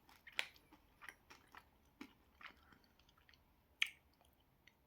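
Faint wet mouth sounds of someone chewing a soft, sticky, gooey sweet: scattered small smacks and clicks, with one sharper smack near the end.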